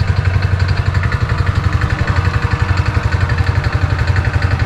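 Small engine running steadily at a constant speed, with a fast, even beat.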